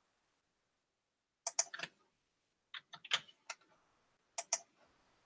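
Sharp clicks of someone working at a computer, with silence between them: a quick cluster of three about a second and a half in, several more around three seconds, and a pair near the end.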